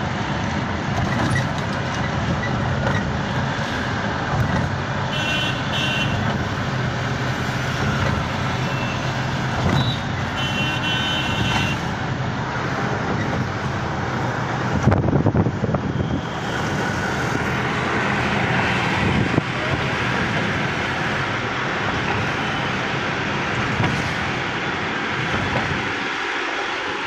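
Continuous vehicle and traffic noise, with a few short horn toots about five and ten seconds in.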